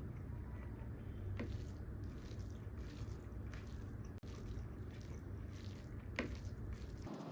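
Eating sounds: wet chewing and squishing of soft food in the mouth, with three sharp smacks, over a steady low hum.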